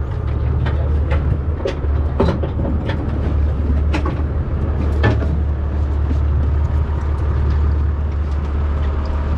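A boat engine runs steadily with a low, even hum. A handful of sharp knocks on the boat come in the first five seconds.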